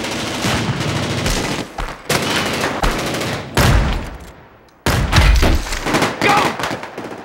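Rapid automatic gunfire in a film shootout: several long volleys of fast shots, broken by short lulls about two, three and a half and five seconds in.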